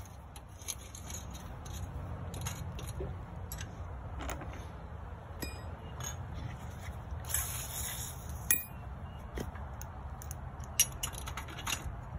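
Small metal nuts, bolts and knife sections of a sickle bar mower being handled by hand: scattered light clinks and clicks, with a longer scrape about seven seconds in and a sharper click near the end.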